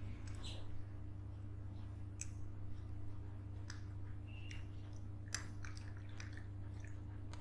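Water poured slowly from a small glass into a stemmed glass of blue glass stones, heard as faint scattered trickles and small clicks over a steady low hum.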